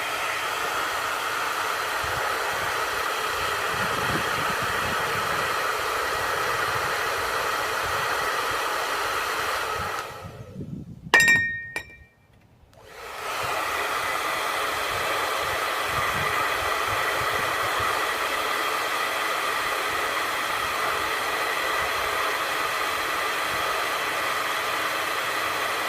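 Handheld hair dryer blowing steadily, with a whine in its rush of air. It cuts out about ten seconds in, followed by a short knock and a brief glassy ring. About two seconds later it starts up again and runs steadily.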